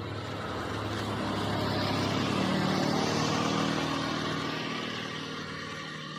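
A motor vehicle passing by, its engine and road noise swelling to a peak about halfway through and then fading away.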